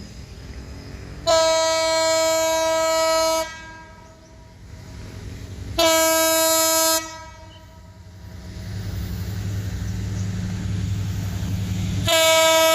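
Indonesian locomotive air horn giving the Semboyan 35 horn signal: a long blast of about two seconds, a shorter blast about two seconds later, and a third blast starting near the end, each one steady note. Between the second and third blasts a low train rumble grows louder.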